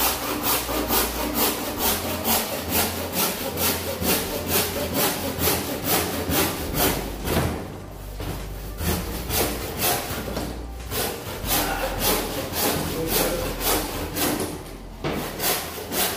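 Hand saw cutting through a Celotex fibreboard ceiling panel in even back-and-forth strokes, about two to three a second, pausing briefly about eight seconds in and again near fifteen seconds.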